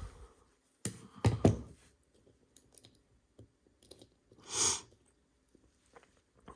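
Small clicks and knocks of tools and lock parts being handled on a bench, with a few sharper knocks about a second in and a short soft hiss just past the middle.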